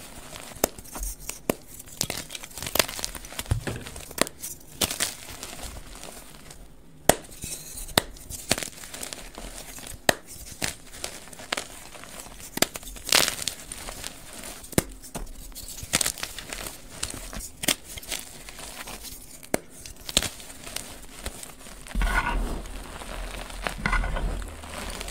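Dyed gym chalk blocks being crushed and crumbled by hand, with irregular dry crackles and snaps as the chalk breaks and the powder crunches. The crunching is heavier and deeper near the end.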